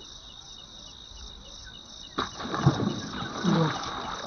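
Insects, crickets among them, chirring steadily with a regular ticking pulse, and a louder burst of rough noise about halfway through that lasts nearly two seconds.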